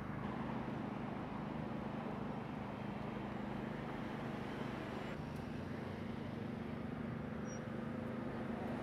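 An engine running steadily at idle, an even low hum over a steady background hiss that does not change.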